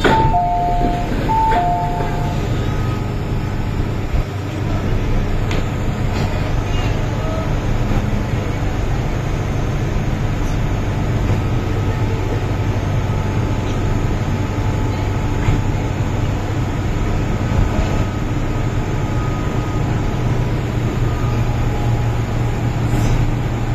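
Interior of an MTR M-Train metro car running, a steady rumble of wheels and traction hum; it is drawing into a station near the end. A two-note electronic chime sounds twice near the start.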